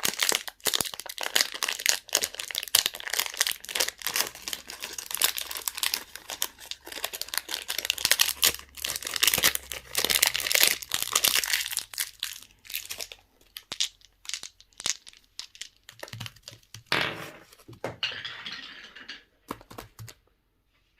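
Candy wrappers being crinkled and torn open, a dense run of crackling that thins to scattered crackles and rustles and stops near the end.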